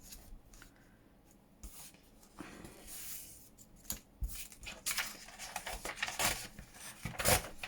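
Paper and small craft pieces being handled on a desk: intermittent rustling with light taps and clicks, the loudest rustle near the end.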